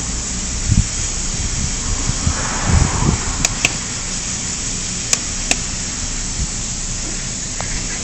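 Steady hiss with irregular low rumbling from a handheld camera being moved about, and a few sharp clicks around the middle.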